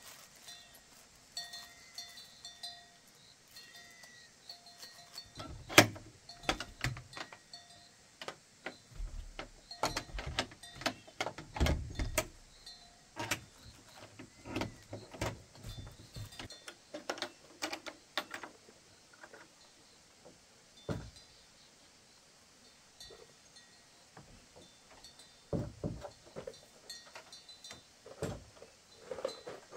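Irregular knocks, taps and clatter of hand work, thickest in the middle stretch and loudest about six and twelve seconds in, with faint high chirping calls in the background during the first few seconds.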